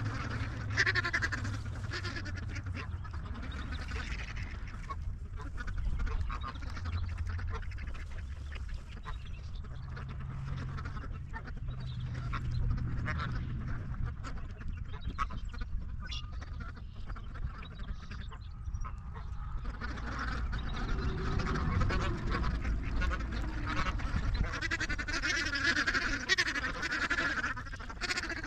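Ducks quacking, with calls scattered throughout and more of them in the last several seconds, over a steady low rumble.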